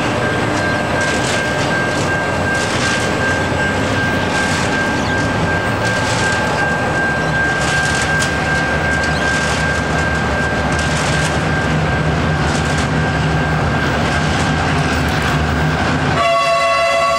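Diesel locomotives of a heritage train led by Victorian Railways T342 running up on the approach, a steady engine drone with a thin steady high whine over it. About a second before the end the leading locomotive sounds its horn, a chord of several notes held steadily.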